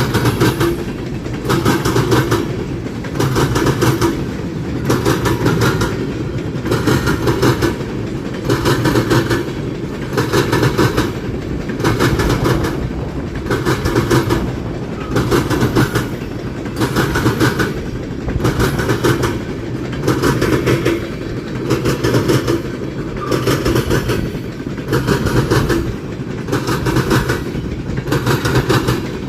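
CSX freight train's cars rolling past at speed: steel wheels clacking in groups about once a second over a steady low rumble.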